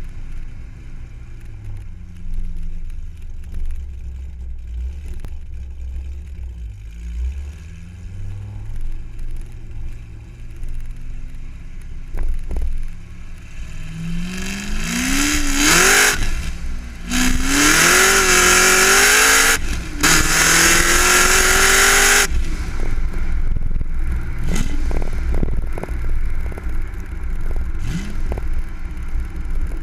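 Car engine rumbling low, then revved hard in three loud bursts with the pitch climbing in each, before dropping back to a low rumble.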